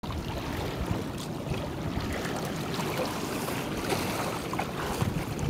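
A boat under way: a steady low rumble mixed with the rush of water and wind buffeting the microphone.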